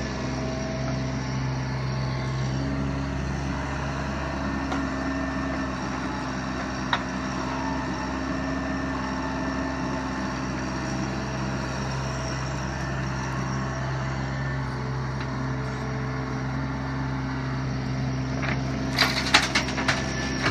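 Bobcat 324 mini excavator's diesel engine running steadily while it digs. Near the end comes a cluster of sharp rattling knocks as a bucketful of soil and stones is dumped into a dump trailer.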